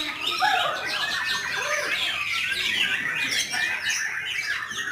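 Several caged white-rumped shamas (murai batu) singing at once: a dense, unbroken tangle of overlapping whistles and fast gliding notes.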